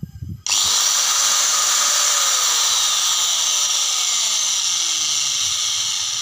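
Electric angle grinder switched on about half a second in and running at full speed with a high whine and a rough, growling ("ngorok") note, the sign that its carbon brushes are nearly worn out. The sound begins to die away near the end.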